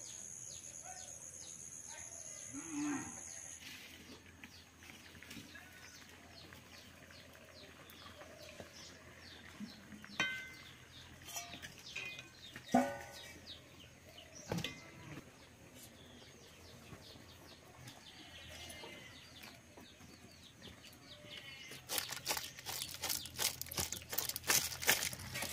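A cow lowing a couple of times in the background. Near the end, a dense rattling clatter of many small snail shells tumbling from a woven basket onto a stone slab.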